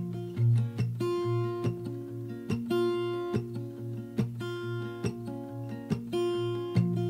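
Background music led by acoustic guitar, plucked notes in a steady, even rhythm.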